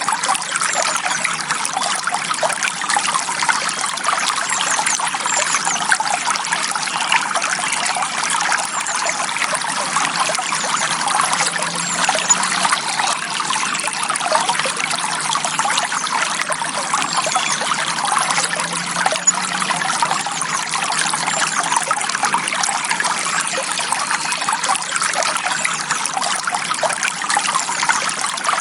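Clear forest stream flowing gently, a steady, unbroken sound of running water.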